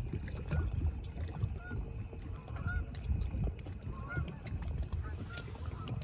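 A flock of geese honking in flight, short calls repeating about once a second over a low rumble.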